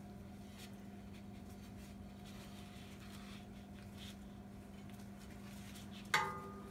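A steady low hum with faint handling ticks, then a single sharp metallic clink that rings briefly near the end, metal striking metal.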